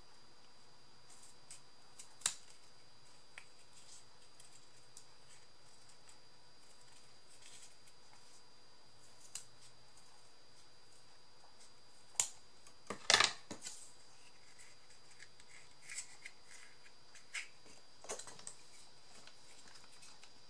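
Scissors snipping and hands handling paper craft materials: scattered short snips and clicks, the loudest cluster about two-thirds of the way through.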